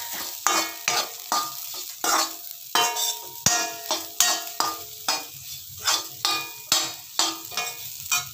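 Steel spatula stirring and scraping mashed raw banana around a metal kadai, about two strokes a second, each with a light metallic ring, over a faint sizzle of frying.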